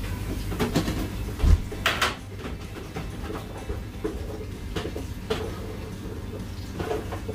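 Steady hum of a kitchen extractor fan with scattered clicks and rustles as food is handled and packed into a plastic bag; a louder clatter and rustle comes about one and a half to two seconds in.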